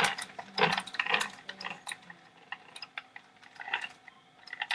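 Small cross wrench tightening a wheel nut on a 1/10-scale RC car, a quick run of metallic clicking and rasping in the first second or so, then scattered lighter clicks.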